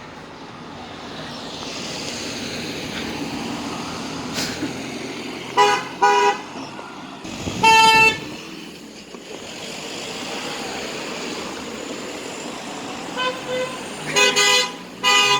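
Car horns honking over passing road traffic: two short toots about five and a half seconds in, then a longer, higher-pitched honk, and a run of several more toots near the end.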